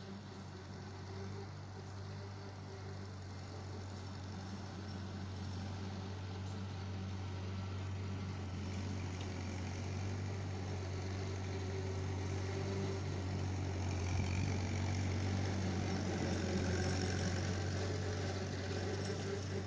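Massey-Harris 22 tractor's four-cylinder engine running steadily as the tractor drives across the field, growing gradually louder as it comes nearer.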